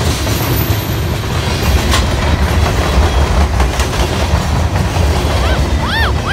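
Freight train cars (tank cars and open-top gondolas) rolling past close by: a steady low rumble of steel wheels on rail, with a few clanks over the rail joints. Near the end come a couple of short squeaks that rise and fall in pitch.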